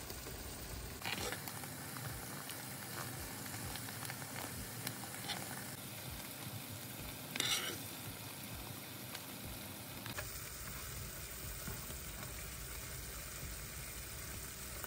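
Creamy garlic sauce with salmon fillets sizzling steadily in a frying pan, with a couple of brief scrapes of a spoon against the pan as the sauce is spooned over the fish, the louder one about seven seconds in.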